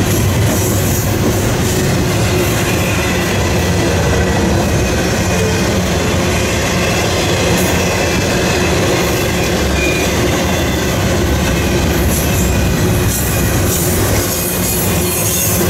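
Double-stack intermodal container train rolling past at close range: a steady, loud noise of steel wheels running on the rails as the well cars go by.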